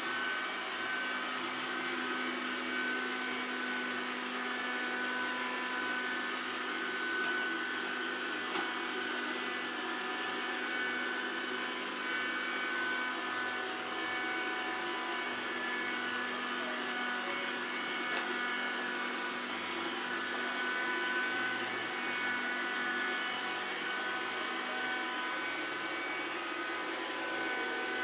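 Pifco robotic vacuum cleaner running steadily: a motor whine over an even hiss of suction.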